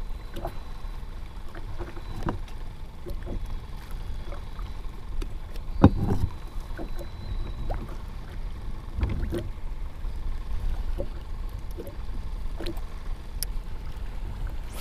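Small waves lapping against the plastic hull of a Vibe Sea Ghost 130 fishing kayak, over a steady low rumble, with scattered small knocks of gear against the hull. The loudest event is one sharp knock about six seconds in.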